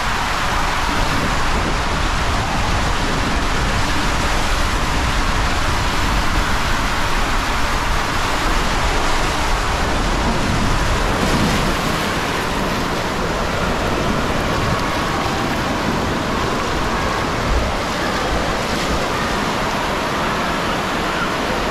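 Water rushing and a rider sliding down an enclosed fibreglass tube water slide, with a low rumble. About twelve seconds in the rumble drops away, leaving a steady rush of churning water in the slide's run-out lane.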